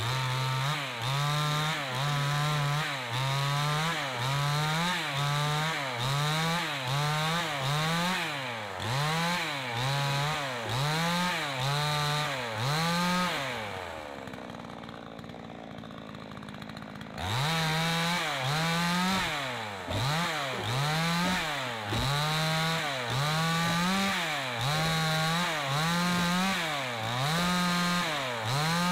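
Two-stroke Zenoah-clone chainsaw running at high revs while cutting wood, its engine note dipping and recovering about once a second. About fourteen seconds in the engine falls back toward idle for a few seconds, then revs up sharply and cuts on.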